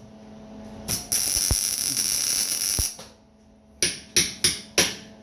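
Electric arc welding on steel plate: a weld run of about two seconds with a continuous crackle that starts and stops abruptly, followed by four short, sharp tack or stitch welds, all over a steady low hum.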